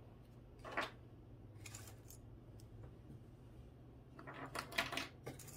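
Faint, short scrapes and rustles of small objects being handled on a desk: a couple of isolated ones early, then a quick cluster near the end, over a faint low hum.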